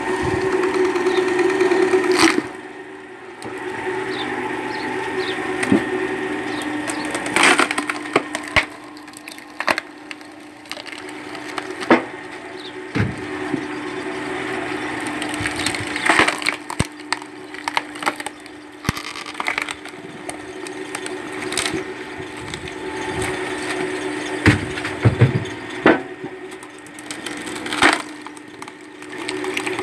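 Screw-type cone log splitter driving its threaded cone into pine rounds: the machine hums steadily while the wood splits with repeated sharp cracks and splintering.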